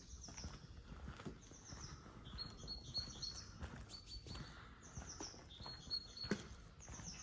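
Small songbird singing short phrases of high notes, repeated every second or two, with occasional soft footsteps and faint low wind rumble underneath.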